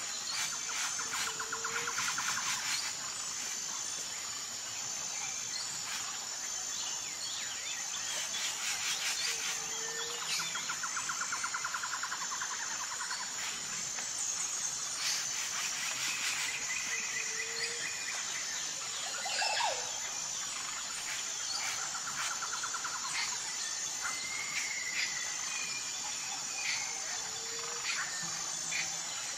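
Outdoor nature ambience: a steady high-pitched insect chorus with scattered bird chirps and trills, and a short low hoot that repeats about every eight seconds.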